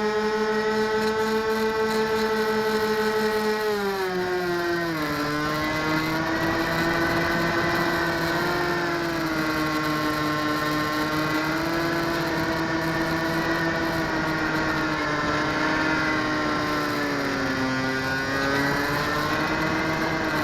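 Motor and propeller of an RC Stratos model airplane, heard from its onboard keychain camera: a steady buzzing hum that drops in pitch about four seconds in as the motor slows, wavers, then speeds up again near the end.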